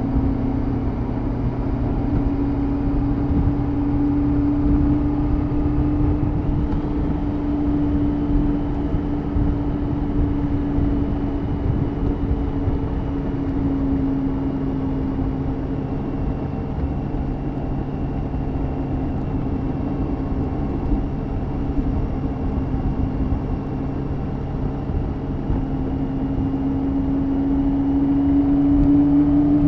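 BMW K 1600 GT's inline-six engine running steadily at cruising speed, its note rising and falling a little with the throttle, over a constant rush of wind and road noise.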